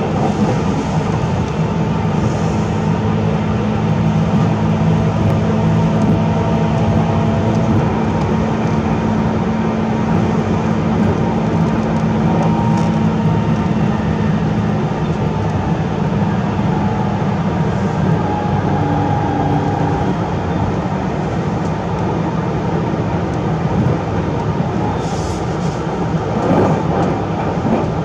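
Express train's running noise heard from a passenger seat inside the car: a steady rumble of wheels on rails under a low hum. A few short clicks come near the end.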